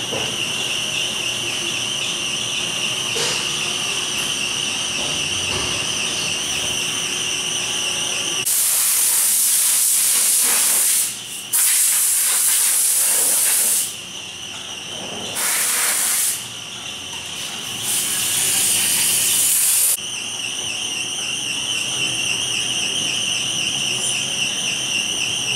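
Compressed-air blow gun hissing in four loud bursts of one to three seconds each, starting about eight seconds in, over a steady high-pitched machine whine.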